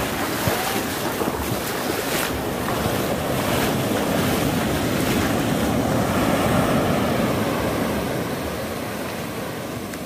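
Small surf breaking close by and its foamy wash running up and back over the sand, swelling to its loudest about six or seven seconds in and then easing off.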